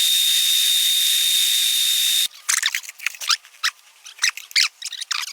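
Drain-cleaning machine running with a steady hiss and a thin high whine that cuts off about two seconds in, followed by a rapid string of short squeaks.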